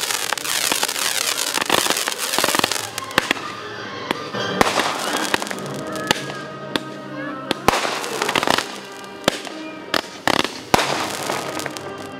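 New Year's fireworks going off: many sharp bangs and crackles in quick, irregular succession.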